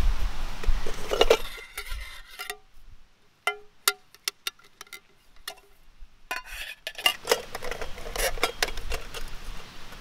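Camping cookware pots and pans clinking as they are nested together and packed away, with sharp metal clinks that ring briefly. The clinks are scattered through the middle and turn into a denser clatter with rustling from about seven seconds in.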